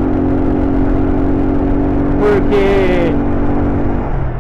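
Single-cylinder engine of a 1999 Honda CG Titan motorcycle running at a steady cruise, its note dropping lower shortly before the end, heard through a microphone tucked inside the rider's helmet with a constant low wind rumble.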